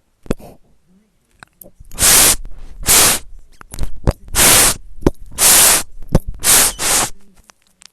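About six loud bursts of harsh hissing noise, each roughly half a second long, starting about two seconds in, with small clicks between them.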